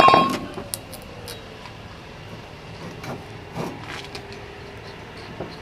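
A single loud metallic clang that rings out briefly as the front brake rotor is worked off the wheel hub, followed by a few light metal knocks and clicks.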